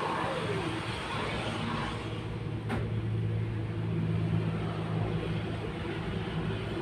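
Steady low mechanical drone of a running engine or motor, with a single sharp click about two and a half seconds in.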